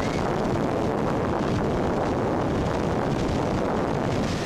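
Wind buffeting the camera microphone in a steady rush, with sea surf underneath.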